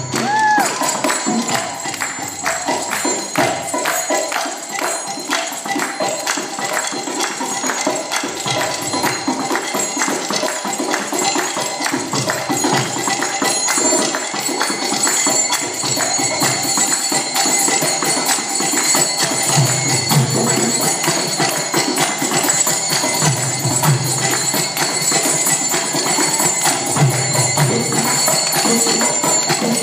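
Music led by mridanga drumming, fast and steady, with jingling hand percussion.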